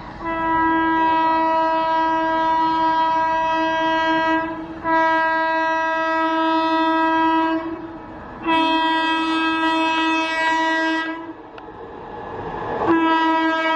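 Electric locomotive horn sounded in four long, steady blasts of about three seconds each with short gaps between, the last one starting near the end, from a WAG-9HC freight locomotive approaching with flat wagons. The rumble of the approaching train rises just before the last blast.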